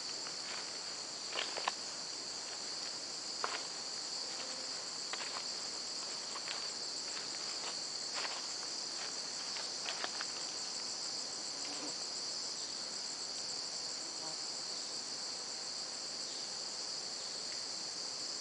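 Steady, high-pitched chorus of rainforest insects, with scattered sharp clicks and snaps, the loudest about one and a half and three and a half seconds in.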